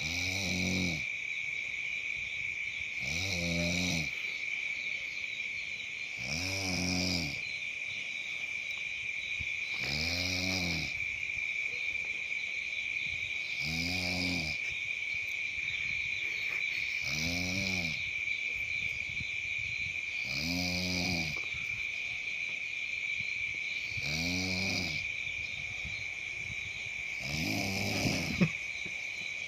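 A sleeping person snoring: nine slow, regular snores, one about every three and a half seconds, each lasting about a second and rising then falling in pitch. A steady high-pitched chirring runs underneath, and there is a single sharp click near the end.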